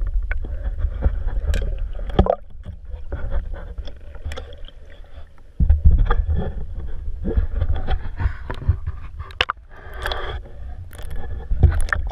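Water splashing and sloshing around a swimmer, with a low rumbling handling noise on the microphone and scattered clicks and knocks. The rumble drops away for a few seconds in the middle and comes back suddenly.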